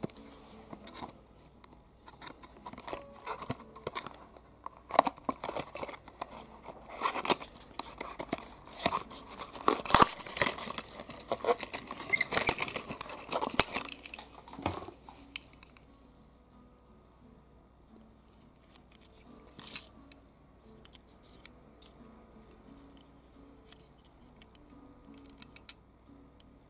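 Cardboard toy box and its plastic window tray being pulled open and handled: quick rustling, crinkling and crackling with sharp clicks for about fifteen seconds. After that it goes quiet apart from a few small clicks as the little die-cast car is handled.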